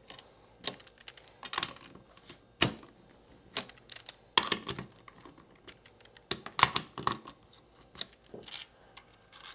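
Ratchet wrench clicking in short irregular spurts as nuts are backed off the bus bar studs of a Victron Lynx Distributor, with small metal clinks of nuts and washers being lifted off by hand near the end.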